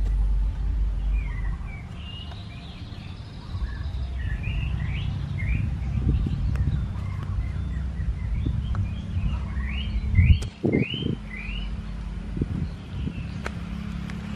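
Small birds chirping, a long run of short rising calls, over a low steady rumble, with one dull thump about ten seconds in.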